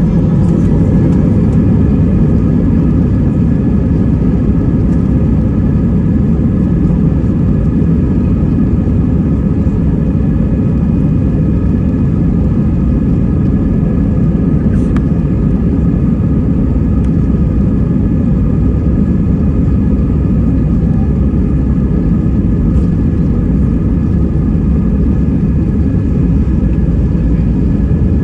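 Inside an Airbus A320 cabin: a steady loud rumble of jet engines and airflow, with several steady high whining tones over it.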